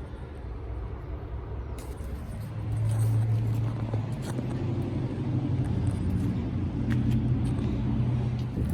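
Carrier Performance Series air conditioner's outdoor unit running with a steady low hum, which gets louder about two and a half seconds in.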